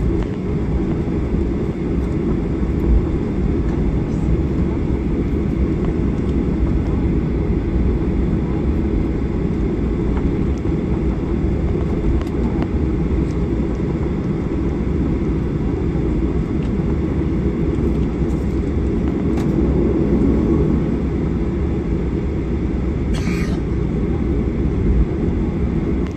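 Cabin noise of a Boeing 737-800 taxiing, heard from inside the cabin: a steady low rumble from its CFM56-7B engines at taxi power and its wheels rolling on the taxiway.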